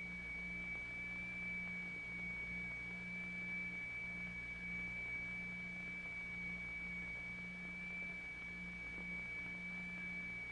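A low hum that throbs, swelling and dipping about once or twice a second, under a steady high tone. It is typical of two notes tuned close together to beat, used to set the figure vibrating.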